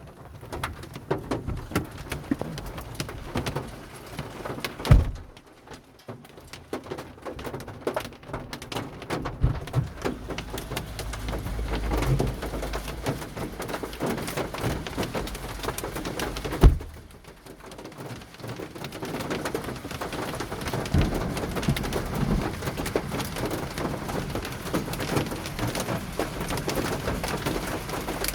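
Hail and rain drumming on a car's roof and glass, a dense crackle heard from inside the car. Two heavy thumps come about five seconds in and again near seventeen seconds, each followed by a moment where the drumming sounds quieter.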